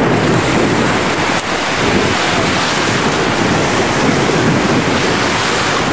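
Steady, loud wind buffeting the microphone over rushing water and waves while a Hobie catamaran sails with one hull flying.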